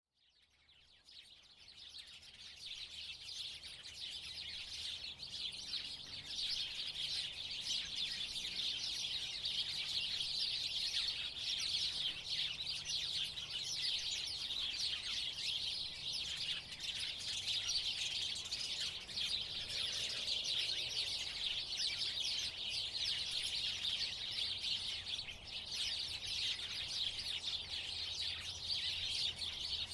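A group of house sparrows chirping continuously, many short chirps overlapping into a busy chatter. It fades in over the first few seconds.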